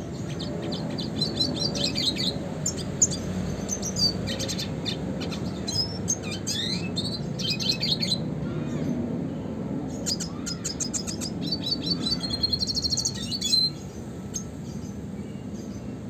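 Male red siskin singing a fast, twittering song of chattering trills and rattling runs, which breaks off about two seconds before the end. A steady low background rumble runs underneath.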